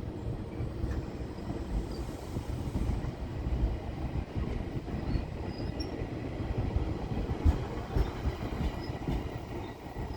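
GO Transit commuter train rolling through the station, a steady rumble of wheels and cars on the rail with a faint squeal and a couple of sharp wheel clicks about seven and a half and eight seconds in.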